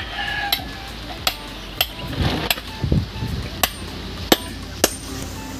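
Hammer blows on a metal tube or punch, driving it into a rubber engine-mount bushing: about eight sharp taps at uneven intervals. A rooster's crow tails off at the very start.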